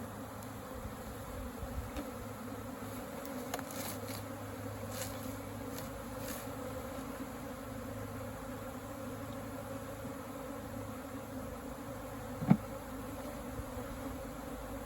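A honey bee swarm buzzing in the air, a steady dense hum. Late on, a single sharp knock.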